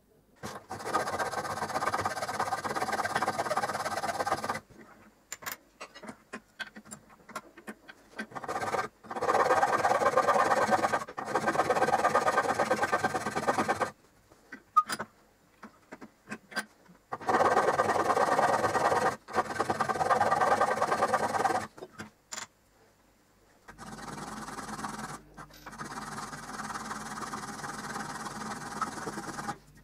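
Metal part clamped in a bench vise being cut and filed by hand: four spells of quick back-and-forth scraping strokes with short pauses between, the last spell quieter and made by a flat file pushed two-handed across the work.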